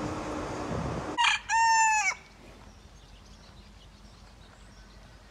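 A rooster crows once, about a second in: a short first note, then a longer held call that bends down at its end, the loudest sound here. Before it comes about a second of rustling noise.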